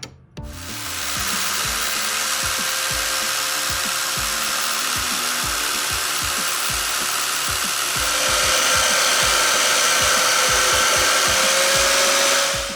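A power tool running steadily against the cast aluminum blade during finishing, with a thin steady whine through it. It starts about half a second in, gets louder about eight seconds in, and stops just at the end.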